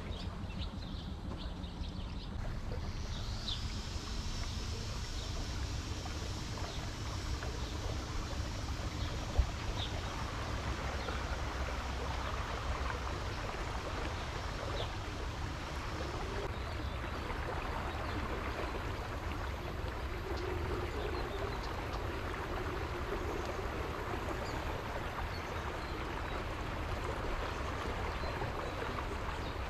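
Tour boat underway on a river: its motor runs with a steady low rumble while water rushes along the hull. One sharp knock stands out about nine seconds in.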